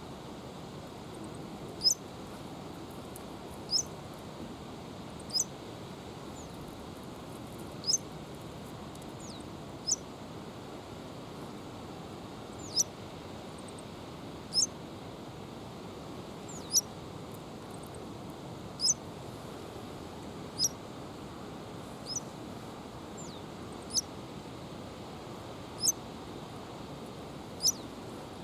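A small bird repeating a short, high, downward-slurred call about every two seconds, over a steady rush of wind noise.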